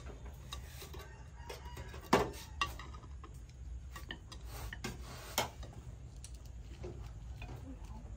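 Light taps and clinks of chopsticks and spoons against ceramic plates and a stainless steel tray while rice rolls are being made, with a sharper knock about two seconds in and another about five seconds in.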